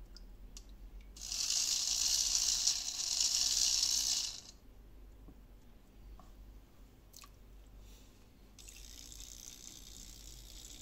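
Water churning and splashing around a fishing lure being tested in a bucket of water, in two bursts of hissing spray: a louder one of about three seconds, then a softer one near the end.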